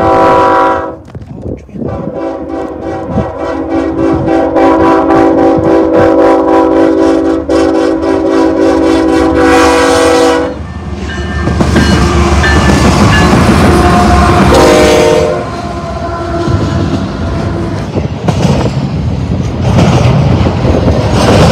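BNSF freight diesel locomotive's air horn sounds a short blast, then a long blast of about eight seconds starting about two seconds in. The lead locomotives' diesel engines then rumble past, followed by the rhythmic clickety-clack of double-stack intermodal well cars rolling over the rail joints.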